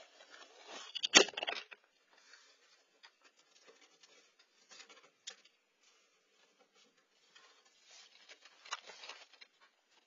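A raccoon knocking over a Nest camera: scratching and rustling against the camera, with a loud knock about a second in as it goes over. Scattered scratches and taps follow, with another burst of scraping near the end.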